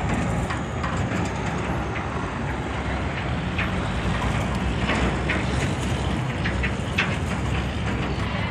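River ferry's engine running with a steady low drone under a dense rushing noise, and a few sharp clicks scattered through it.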